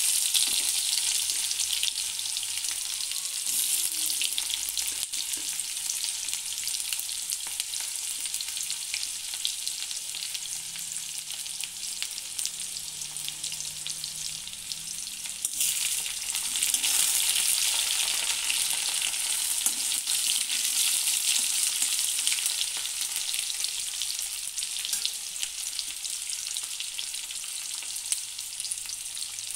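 Sliced onions sizzling in hot oil in an iron kadai, a steady high hiss that is loudest as the onions go into the oil at the start, eases a little, then swells again about halfway through.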